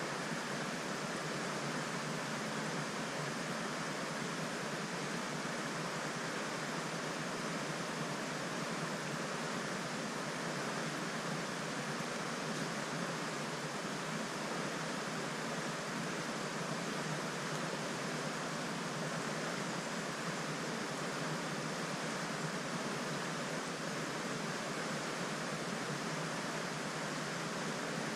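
River water rushing steadily, an even hiss with no breaks or separate sounds.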